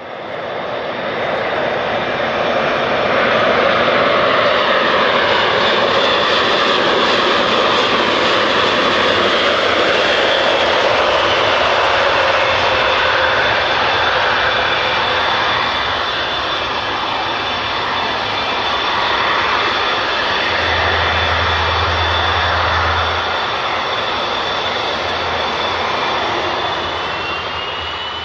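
Airbus A400M Atlas landing, its four Europrop TP400-D6 turboprop engines and eight-bladed propellers running loud and steady as it comes in low and rolls along the runway. A steady high whine sits over the engine noise, which starts to fade near the end.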